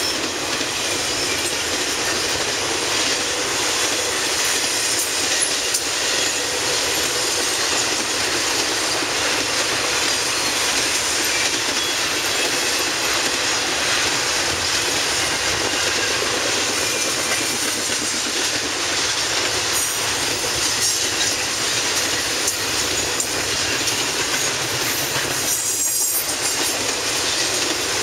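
Intermodal freight train's cars rolling past, a steady noise of steel wheels running on the rails.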